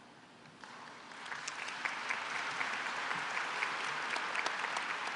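Audience applauding: the clapping starts less than a second in, builds quickly and holds steady.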